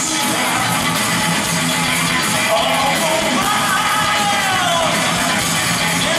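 Live hard rock band playing: distorted electric guitars and drums with the lead singer's voice on top, continuous and loud.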